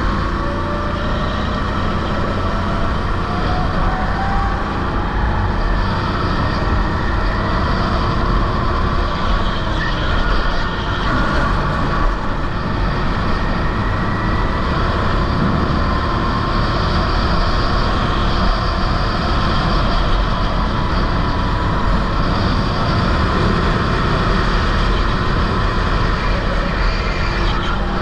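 Sodi rental go-kart engine running at racing speed, its pitch slowly rising and falling with the revs, against a heavy low wind rumble on the onboard camera's microphone.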